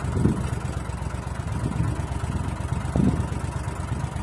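Tour boat's motor running steadily at low speed, a low even rumble.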